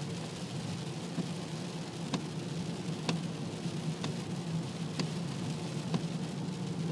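Car cabin while driving in heavy rain: steady engine hum and wet-road tyre noise, with rain on the windscreen and the wipers sweeping, and a sharp click about once a second.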